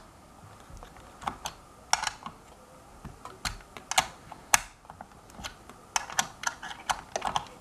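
Irregular sharp clicks and light metal taps as a hand works the screws of a balance scooter's wheel-motor axle clamp block tight on its aluminium frame.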